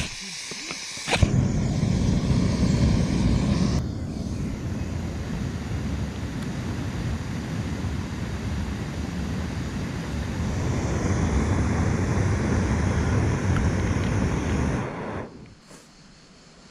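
A ferro rod struck against a Primus canister gas stove, which catches about a second in and burns with a steady, loud rushing noise that stops abruptly near the end.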